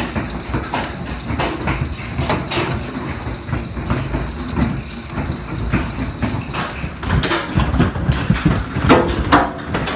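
Hailstorm: hailstones pelting down in a dense, irregular clatter of hard impacts over a steady rushing noise.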